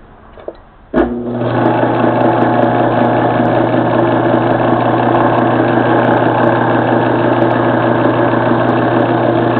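Craftsman Dunlop 109 metal lathe switched on about a second in, its motor and freshly reassembled headstock with a new bushing then running steadily with a low hum and a whine.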